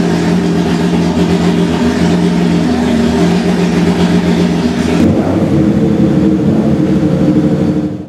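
Renault R.S. 01's twin-turbo V6 racing engine running at a steady idle, its note wavering only slightly.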